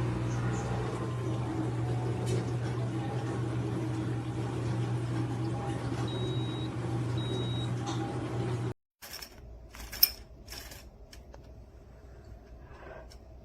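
Espresso machine pump humming steadily while the machine runs. It stops abruptly about nine seconds in, and a few clicks and one sharp knock follow.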